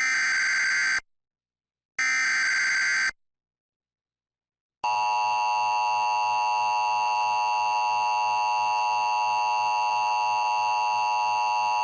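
Emergency Alert System tones. First come two bursts of SAME digital header data, each about a second long and a second apart. Then, about five seconds in, the steady two-tone attention signal (853 and 960 Hz sounding together) begins; it announces a warning and carries on past the end.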